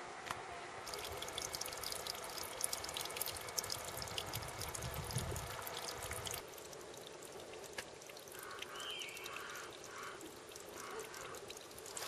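A thin stream of water trickling and dripping over rock, a fine crackle of small drips and splashes. It grows quieter about six seconds in.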